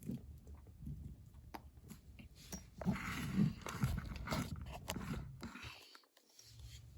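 Handling noise from a plastic action figure being set up to stand: scattered light clicks and rustling, louder in the middle.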